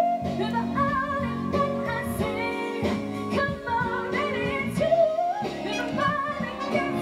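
Music from a live band and string section with violins, with a woman singing over it in a wavering, vibrato-rich voice.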